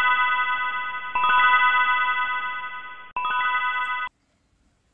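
Intro jingle of bright bell-like chime tones. It is already ringing when it starts, is struck again about a second in and once more about three seconds in, each time as a quick run of chime notes that rings on and fades. It cuts off suddenly about four seconds in.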